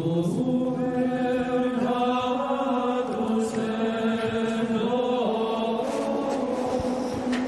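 A long, unbroken chant-like vocal drone, held on one low pitch that wavers slightly.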